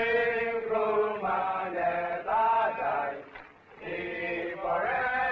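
Slow chanted singing in long held notes, with a short break about three and a half seconds in.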